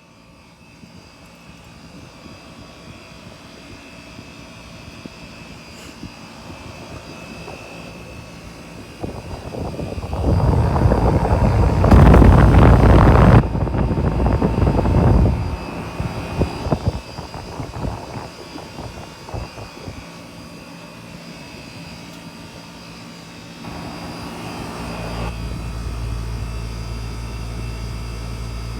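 3-ton Miller central air conditioner running: a steady rush of fan air with a low hum underneath. About ten seconds in the rush grows much louder and gustier for around five seconds, then settles, and a steadier low hum comes in near the end.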